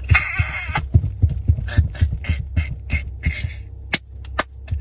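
A man imitating a snore with his mouth as a rhythmic beatbox pattern: breathy puffs over low thumps, about four a second, ending with a couple of sharp clicks.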